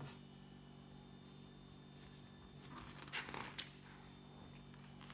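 A paper page of a picture book being turned, a short rustle of several quick swishes about three seconds in, over a faint steady hum.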